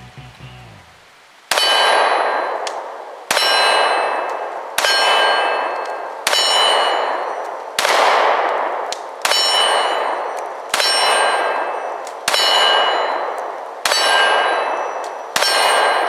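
A Glock 43X 9mm pistol fired at a slow, steady pace, ten shots about a second and a half apart. Each shot is followed by a clear metallic ring that fades away, the sound of a steel target being hit.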